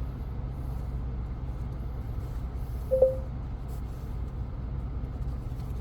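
Steady low rumble inside a GMC Sierra pickup's cabin, with one short beep about three seconds in.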